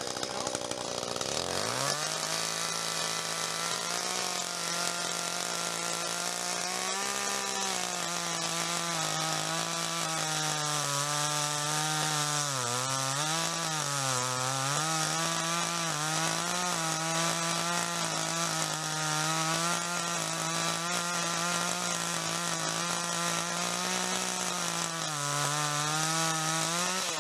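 Echo two-stroke chainsaw revved up to full throttle about two seconds in and held there while cutting through a log. Its pitch sags briefly under load around the middle and again near the end.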